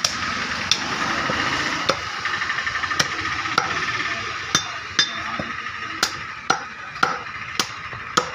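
Meat cleaver chopping mutton on a wooden log chopping block: about a dozen sharp chops at uneven intervals, coming closer together in the second half, over steady background noise.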